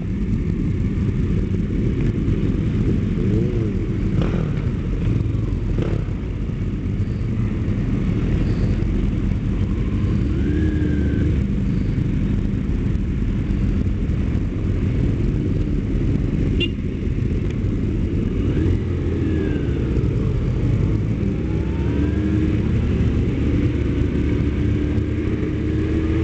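Several sport motorcycles riding together, heard from on board one of them: a steady, loud low engine drone, with engine notes rising and falling now and then.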